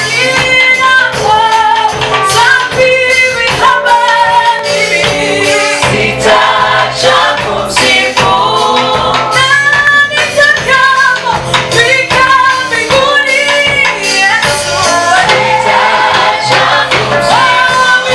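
A gospel choir singing a praise and worship song with instrumental backing and a steady beat.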